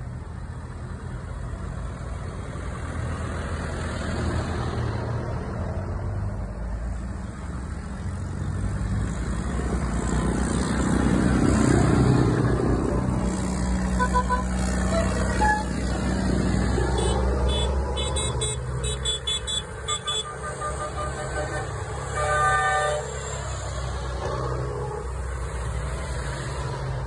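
A convoy of large farm tractors drives past with diesel engines rumbling, growing loudest as one passes close by near the middle. Several short horn toots sound in the middle, and a louder horn blast comes about two-thirds of the way through.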